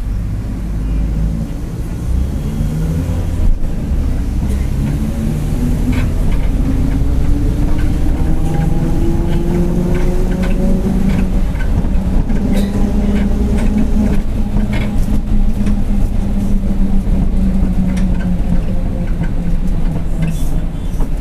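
Mercedes-Benz OF-1721 city bus under way, its diesel engine pulling as the bus gathers speed twice, with a whine that climbs in pitch each time. The differential is growling. Short rattles and knocks come from the bus body throughout.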